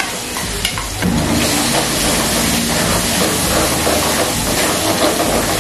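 Ground coconut masala paste tipped into hot ghee with mustard seeds and curry leaves, sizzling. A few sharp crackles in the first second, then about a second in the sizzle swells to a loud, steady hiss as the paste hits the fat.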